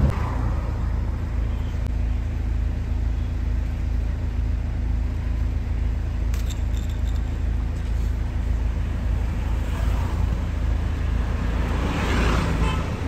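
A car driving on a road: a steady low rumble of engine and road noise.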